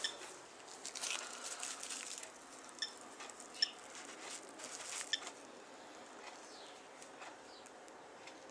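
Plastic bag and cling film crinkling and rustling as they are handled, with sharp clicks and two short beeps about three seconds in; the handling stops after about five seconds, leaving it much quieter.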